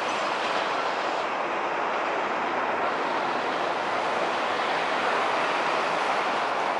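Hanshin Main Line electric train running away on curved track into a tunnel portal, a steady even rumble of wheels on rail.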